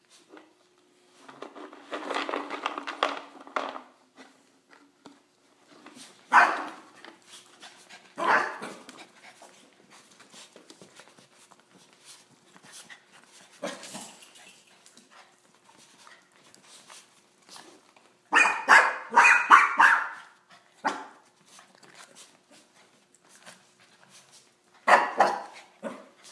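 Small white fluffy puppy yapping in short outbursts: a run of yaps in the first few seconds, single barks about 6 and 8 seconds in, a quick flurry around 18 to 20 seconds in and another burst near the end.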